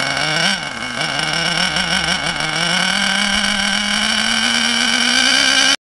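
Small nitro engine of an HPI Savage RC monster truck running with its wheels off the ground. Its pitch wavers unevenly for the first couple of seconds, then climbs slowly and steadily.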